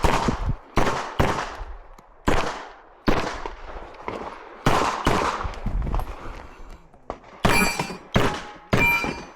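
A CZ Shadow 2 pistol fired in an IPSC stage: about nine single shots at uneven spacing, some in quick pairs, with a longer pause midway. The last three shots, near the end, carry a ringing metallic tone.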